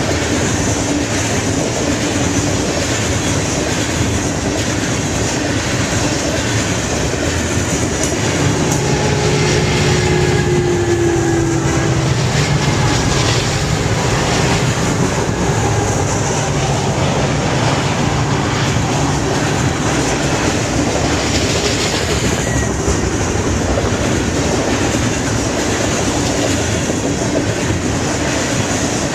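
Freight train hopper cars rolling past with a steady wheel rumble and clickety-clack over the rail joints. About a third of the way in, a mid-train Utah Railway diesel locomotive passes under load on the upgrade, and its engine adds a louder low drone for several seconds before the cars' rumble takes over again.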